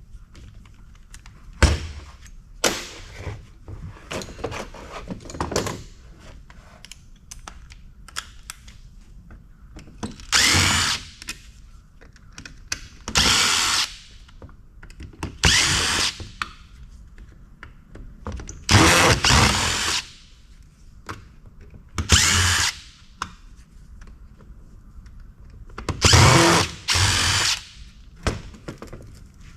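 Cordless drill-driver run in about six short bursts of a second or so each, backing out screws, with clicks and knocks of metal parts in between.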